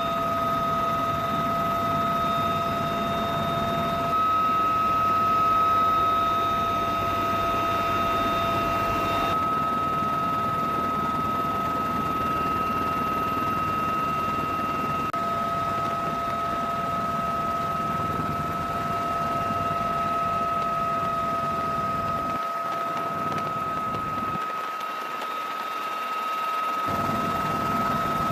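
UH-1Y Venom helicopter running, its twin turboshaft engines giving a steady high whine over a rushing rotor and wind noise. The sound changes abruptly a few times where shots are cut together, and the low rumble drops out for a few seconds near the end.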